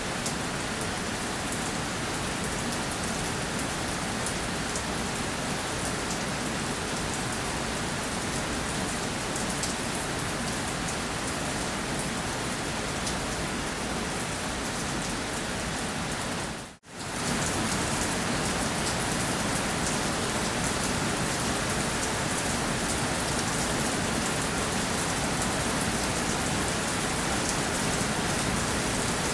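Steady rain falling on a surface, a dense even hiss of drops. About two-thirds of the way through it drops out briefly to near silence and then comes straight back at the same level.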